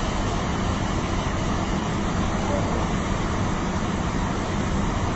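Steady rushing noise of wind and churning wake from a moving cruise ship, unchanging, with no single event standing out.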